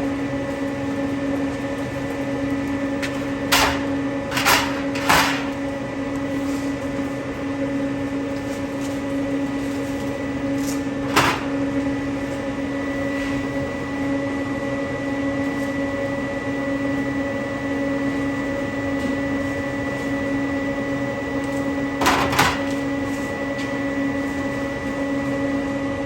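Steady hum of a refrigerated drink vending machine running, with a few short knocks and clunks: a cluster about four to five seconds in, one near the middle and a pair near the end.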